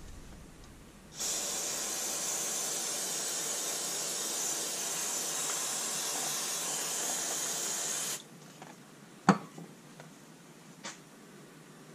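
Aerosol can of Gumout Jet Spray carb and choke cleaner spraying onto a silicon carbide sharpening stone in one steady hiss of about seven seconds, flushing grit out of the stone. About a second after the spray stops comes a sharp knock, then a fainter one.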